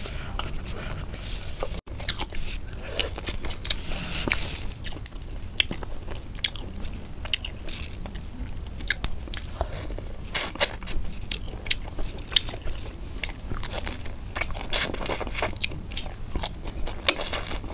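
Close-miked biting, tearing and chewing of crispy spiced duck heads: irregular crunches and crackles, with a few sharper crunches about ten seconds in and near the end.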